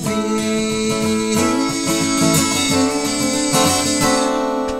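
Acoustic guitar strummed, its chords ringing on between a few strokes and getting softer near the end.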